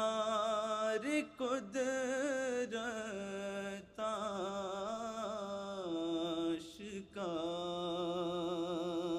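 A man chanting an Urdu nazm (devotional poem) in a slow melodic recitation, holding long wavering notes, with short pauses for breath between phrases.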